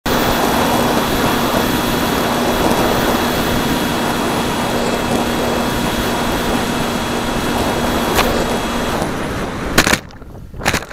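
Rushing air and the steady whine of a Bixler foam RC plane's electric pusher motor, heard through its onboard camera. The whine stops about nine seconds in, and the plane crashes into the ground with a loud sharp impact, followed by a second, lighter knock near the end.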